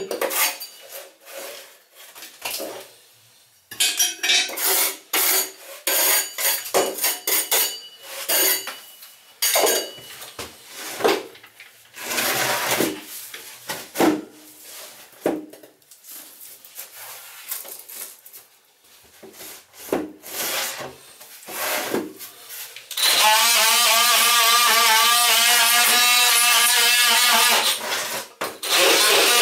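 A hand brush and scraping on the window sill make irregular rubbing strokes. About twenty-three seconds in, a handheld power tool starts cutting at the sill and runs steadily with a loud whine, dropping out briefly near the end before starting again.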